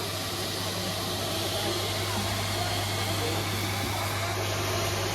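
Steady low hum and rushing, blower-like noise with faint background chatter of a busy street food market.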